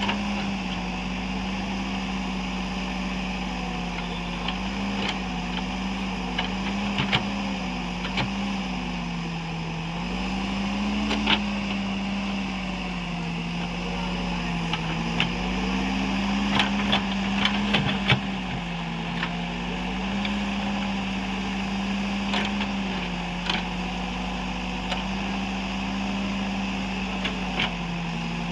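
Escorts Digmax backhoe loader's diesel engine running steadily, its speed rising and falling gently every few seconds as it works, with scattered sharp knocks.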